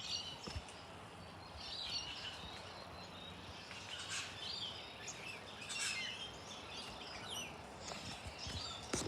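Wild birds calling: short, high, scratchy calls about every two seconds over a steady outdoor hiss.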